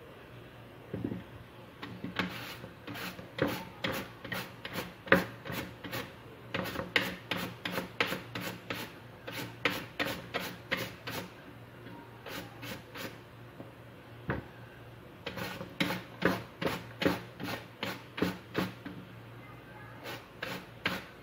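Peeled bottle gourd pushed back and forth across a V-blade mandoline slicer, each stroke a short scraping slice as the blade cuts it into matchstick strips. About two to three strokes a second, in runs, with a lull of a few seconds past the middle.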